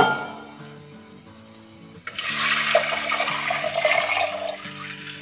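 Raw kadhi batter of sour curd and gram flour poured in a thick stream into hot tempered oil in a clay handi. The pouring starts about two seconds in and lasts about two and a half seconds. It follows a short sharp knock at the very start.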